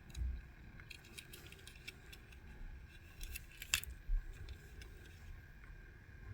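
Light clicks, taps and small rattles from a diecast model car being handled, the sharpest click about three and a half seconds in, with a few dull bumps.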